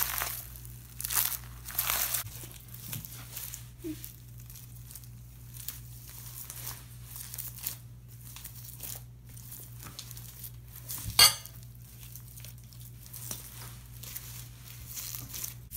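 Slime packed with foam beads being squeezed and kneaded by hand, crackling and crunching irregularly, busiest in the first couple of seconds. About eleven seconds in comes one sharp, loud snap.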